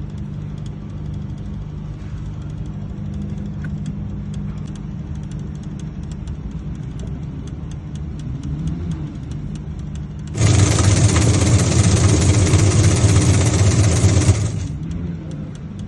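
Top-load washing machine running, a steady low motor hum with faint rapid ticking. About ten seconds in, a much louder rushing noise starts suddenly and lasts about four seconds before the hum returns.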